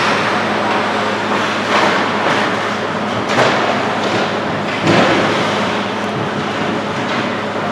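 Ice hockey play on a rink: a continuous rush of skates on the ice over a steady low hum, with sharp clacks and knocks of sticks, puck and boards about two seconds in, past three seconds and, loudest, near five seconds.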